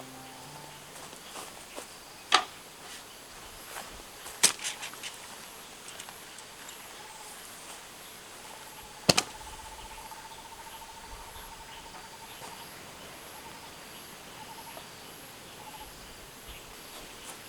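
Insects calling in a steady, high-pitched pulsing chirp, with a lower, rapid trill for about four seconds in the middle. Three sharp clicks or knocks cut through, the loudest about nine seconds in.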